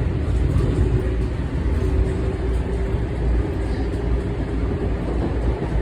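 Inside a moving commuter train: the steady low rumble of the car running on the rails, with a faint steady tone over it.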